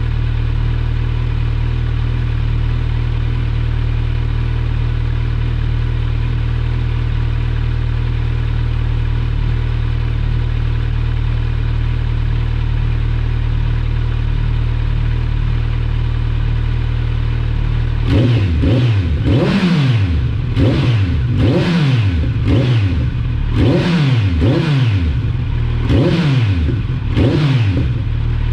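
2023 Kawasaki Z900 SE's inline-four engine through a MIVV MK3 carbon slip-on exhaust, idling steadily, then revved in quick throttle blips about once a second from roughly two-thirds of the way in.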